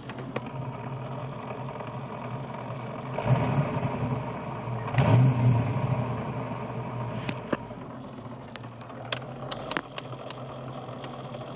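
Ford 5.0 L (302) V8 running with the clutch pedal out, so the T-5 transmission is turning in neutral and its worn bearings can be heard; the owner says the bearings are shot. The running swells briefly twice, about three and five seconds in, and a few sharp clicks come near the end.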